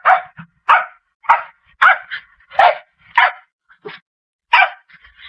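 A dog barking repeatedly in short, sharp barks, about seven of them, roughly one every half second. There is a brief pause before the last bark.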